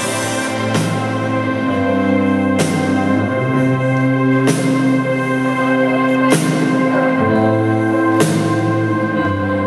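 Live rock band playing an instrumental passage: keyboard, electric guitar and bass hold sustained chords that change about every two seconds, with a crash on each change.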